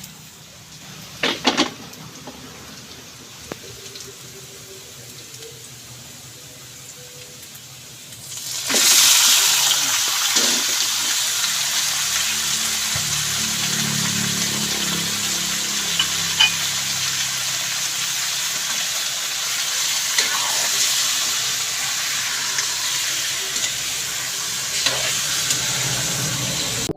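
Garlic and onion frying in oil with a low sizzle and a couple of sharp clinks. About eight and a half seconds in, the sizzle jumps suddenly loud as raw chicken pieces go into the hot oil, and it keeps sizzling strongly with occasional clinks of stirring.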